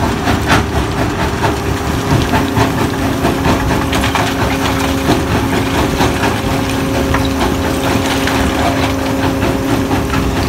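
Herbst HAC700 PTO-driven stone crusher running off a tractor: a steady loud mechanical drone, with a hum that steadies about two seconds in, and frequent knocks and clatter of rock being fed in and crushed.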